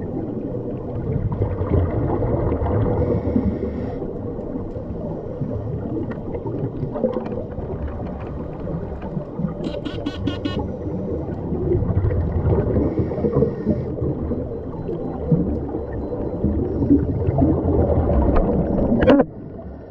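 Underwater scuba sound heard through a GoPro housing: muffled rumbling and gurgling of regulator breathing and exhaled bubbles. A brief hiss comes about ten seconds in, and the level drops suddenly near the end.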